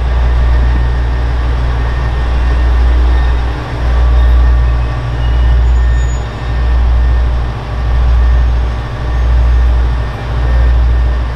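Diesel railcar running, a loud low rumble with a noise haze above it that swells and dips about every second and a quarter.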